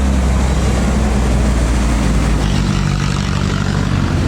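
A tour bus's engine running loud and steady as the bus passes, a low drone with road noise over it.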